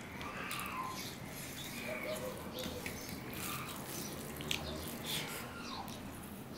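Wet squishing and smacking of rice and dal being mixed by hand on a steel plate and chewed, with short falling squeaks coming several times about a second apart.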